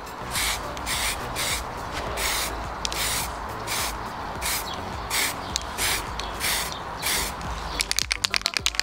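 Aerosol can of heat-resistant spray paint hissing in short, regular bursts about twice a second. Near the end comes a quick run of rapid clicks.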